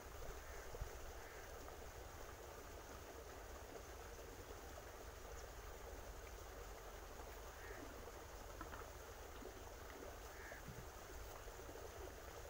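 Quiet outdoor background: a steady low rumble like wind on the microphone, with a few faint short chirps, about two seconds apart near the start and twice near the end.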